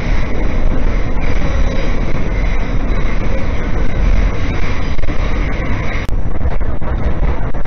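Subway train running, heard from inside the car: a loud, steady rumble and rattle from the wheels and the car. About six seconds in, the higher part of the noise drops away abruptly.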